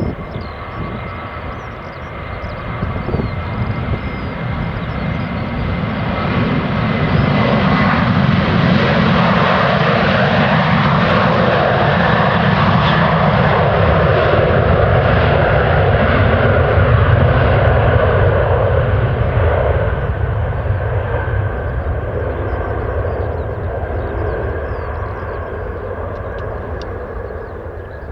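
Boeing 737-800 jet engines, CFM56-7B turbofans, at takeoff thrust as the airliner passes. A steady rush and rumble builds over the first several seconds, holds loudest through the middle, then slowly fades as it moves away, with a thin high whine near the start.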